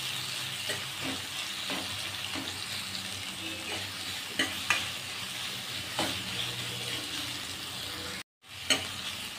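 Sliced onions and green chillies sizzling in hot mustard oil in a kadai, stirred with a steel ladle that clicks against the pan a few times. The sound cuts out briefly near the end.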